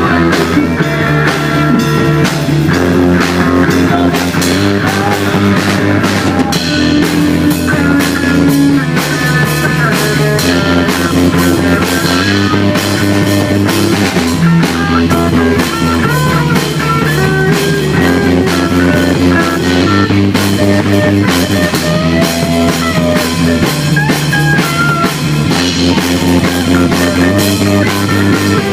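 Rock music on guitar, bass and drum kit, played without pause.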